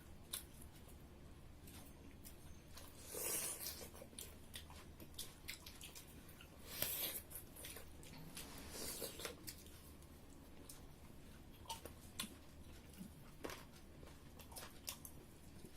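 People chewing and eating pork curry with rice: faint scattered mouth clicks and smacks, with a few louder, longer eating sounds about three, seven and nine seconds in.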